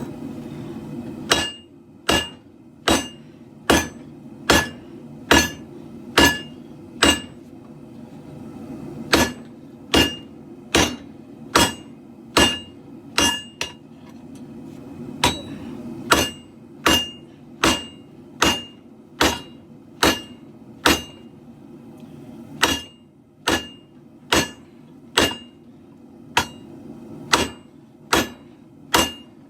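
Hand hammer forging a steel katana blade on an anvil: about thirty evenly paced blows, a little over one a second, in runs of roughly eight with short pauses between. Each blow rings briefly, over the steady low roar of a propane forge.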